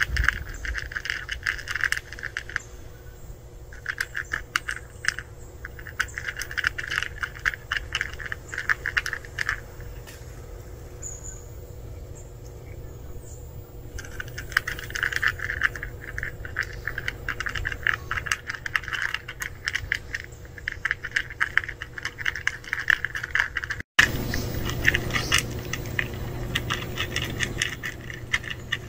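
Two cats crunching dry kibble from a plastic tray: quick runs of fine crunching clicks, with pieces of food rattling against the plastic. The crunching comes in bouts, with a quieter stretch in the middle.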